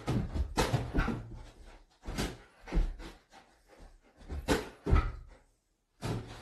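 Irregular thuds and knocks from a dog leaping up and landing on the floor as it bats at a balloon, several in quick succession at the start and more every second or two after.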